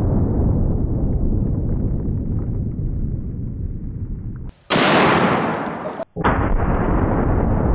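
Deep, muffled boom of a 375 H&H Magnum rifle shot, slowed down with the slow-motion replay, rumbling and slowly fading. About four and a half seconds in, a bright, sharp shot crack with a fading tail cuts in. About a second and a half later the deep, slowed boom starts again.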